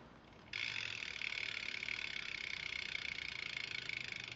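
BMX rear wheel's freewheel hub clicking in a fast, even buzz as the wheel spins, starting about half a second in.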